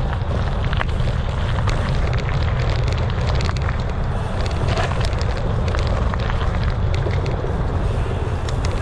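Mountain bike rolling over a dirt forest trail: tyres grinding on dirt, roots and leaves with scattered clicks and rattles from the bike, over a steady low rumble of wind on the camera microphone.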